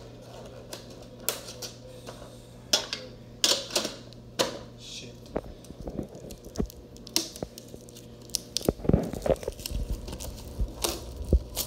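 Foil booster-pack wrappers and packaging crinkling and rustling in the hands, with scattered sharp crackles. A few dull knocks come about nine seconds in and again near the end.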